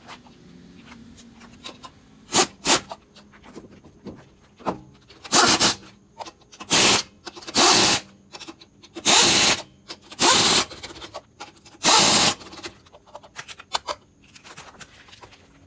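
Impact wrench running lug nuts onto a truck wheel in about eight short bursts, some in quick pairs, with small metallic clicks of nuts and socket between them.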